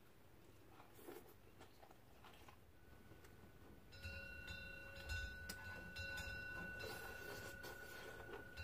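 Quiet eating sounds: faint chewing and light clicks of metal chopsticks against dishes. About four seconds in, a faint steady high tone comes in and holds.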